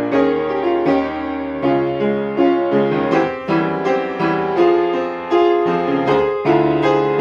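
Solo piano playing the accompaniment part of a choral song, with notes and chords struck in a steady flowing pattern about every half second, each left ringing under the next.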